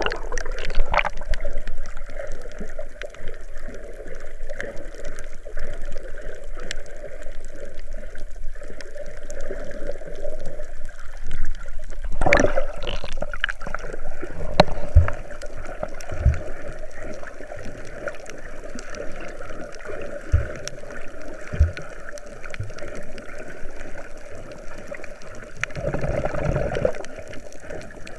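Sea water sloshing and gurgling close to the microphone, with a brief louder burst about twelve seconds in and a few short, soft low knocks after it.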